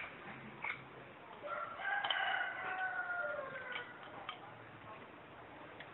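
A rooster crowing once: one long call of about two seconds that starts about a second and a half in and sinks a little in pitch at its end. A few light clicks of dishes being handled sound around it.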